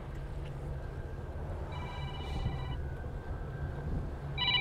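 Mobile phone ringtone: a chord of steady electronic tones rings for about a second, about two seconds in, and rings again, louder, near the end. Under it a low steady rumble, typical of the boat's idling engine.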